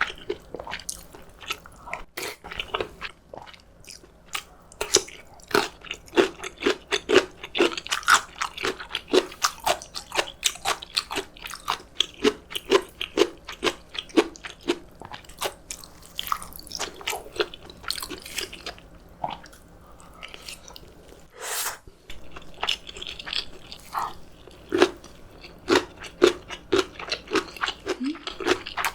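A person chewing and crunching food close to the microphone, in quick, irregular bites with wet mouth clicks. About two-thirds of the way through there is one short, louder rushing sound.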